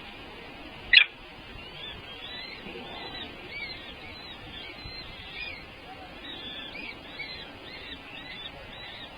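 A single sharp, loud click about a second in, then a run of short, high, piping bird calls, each rising and falling, repeated about twice a second.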